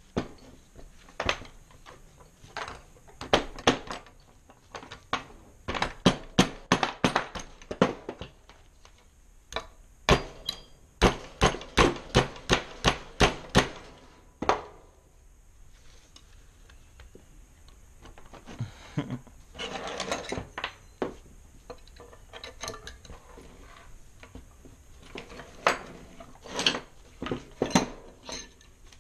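Steel Allen keys clinking and knocking against a 66cc motorized-bike engine's crankcase while its case screws are worked loose: sharp metallic clicks, some in quick runs of several a second, with a stretch of scraping a little past the middle.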